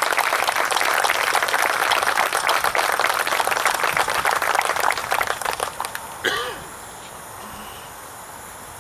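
Crowd applauding: dense clapping that fades out about six seconds in, with a brief voice as it dies away.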